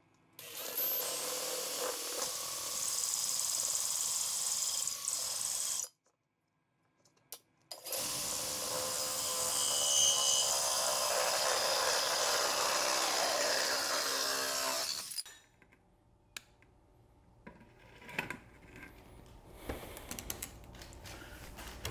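Cordless drill boring through a lamp globe at reduced speed, opening up pilot holes. It runs in two steady runs of about five and seven seconds with a short stop between, then gives way to faint handling knocks and clicks.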